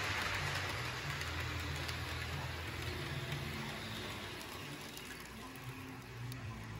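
Model steam locomotive running on layout track: a low motor hum with a rolling hiss of wheels on rail and a few faint clicks, the hiss fading away through the stretch.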